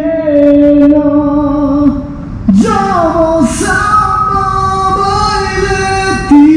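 Singing voice holding long, drawn-out notes over music, sliding up to a higher held note about two and a half seconds in.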